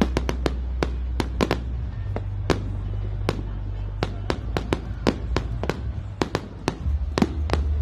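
Fireworks going off in a rapid, irregular string of sharp bangs and crackles, several a second, over music with a deep steady bass that changes note twice.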